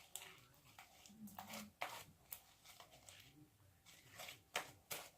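Faint, scattered sticky clicks and small pops of slime being stretched and kneaded by hand, a few soft snaps spread unevenly through otherwise near silence.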